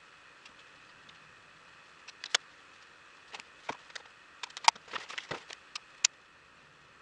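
Irregular small clicks and taps of makeup items being handled during a makeup application, bunched between about two and six seconds in, over a faint steady hiss.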